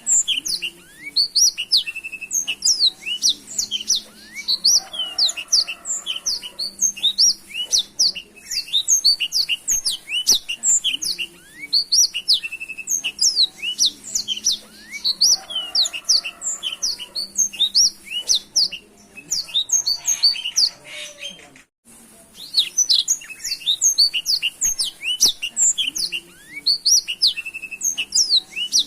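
Blackthroat (black-throated canary, a small seedeater finch) singing a fast, unbroken song of rapid high chirps and trills. A brief gap about three quarters of the way through.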